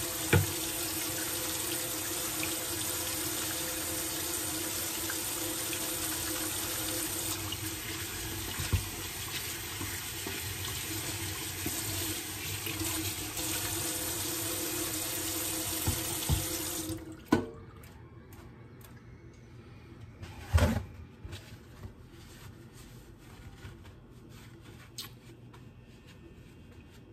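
Kitchen sink faucet running while hands are washed under the stream. About two-thirds of the way in the water shuts off, followed by two sharp knocks, the second louder, and then faint small rustles and clicks.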